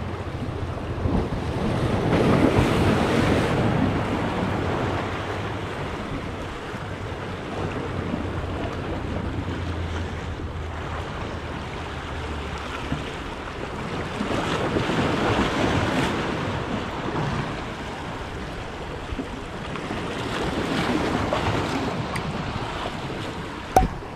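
Sea waves washing in and breaking, swelling louder three times, with wind buffeting the microphone and a low rumble that fades out about halfway through. A single sharp knock comes near the end.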